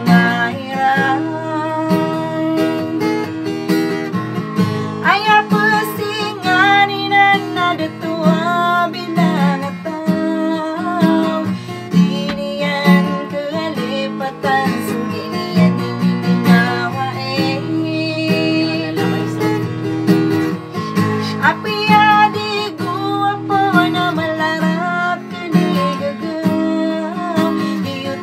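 A woman singing a song while strumming chords on an acoustic guitar, her voice carrying the melody over the steady strummed chords.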